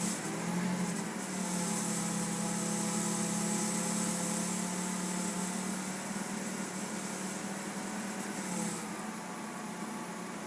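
Chery iQ car engine held at light throttle, its pitch rising slightly just after the start, holding steady, then dropping back toward idle about eight and a half seconds in. The throttle is being held at the light setting where a strange noise appears and then fades again with more throttle.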